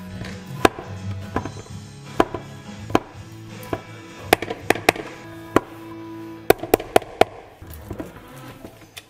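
Background music of held, steady notes, over irregular sharp taps and knocks of a spatula scraping and striking the inside of a plastic food processor bowl, with a quick run of taps about two-thirds of the way through.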